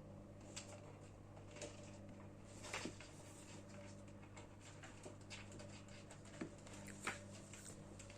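Kittens at play: faint scattered pattering, taps and scratches, the loudest a little under three seconds in and twice near the end, over a steady low electrical hum.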